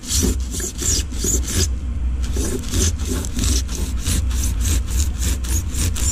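A serrated kitchen knife sawing back and forth through foam flotation blocks in a boat hull, a quick run of rasping strokes about three or four a second with a short break about two seconds in.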